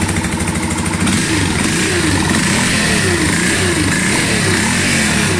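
Yamaha Factor 150's single-cylinder engine running just after starting, with a rhythmic growl of repeated falling whines over the engine note. It sounds like a bad bearing, but the owner traces it to a defective stator: unplugging the stator stops the noise.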